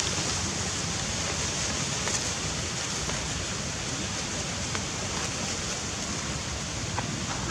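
A steady, even rushing noise with a few faint clicks.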